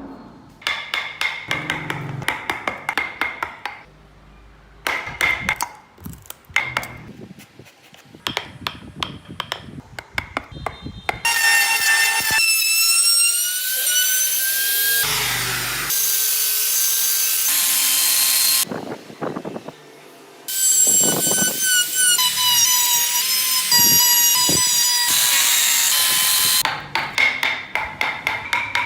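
Woodcarving tools at work: bursts of rapid sharp tapping on wood, then a high-speed power carving tool whining in two long runs, its pitch wavering as it bites into the wood, before the tapping resumes.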